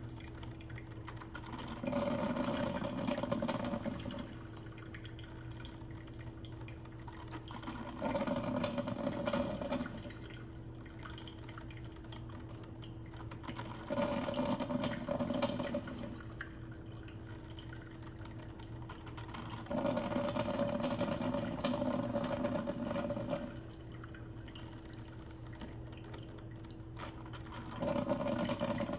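Mr. Coffee 12-cup drip coffee maker mid-brew, gurgling and sputtering in bursts about every six seconds as its heater pushes hot water up to the filter basket.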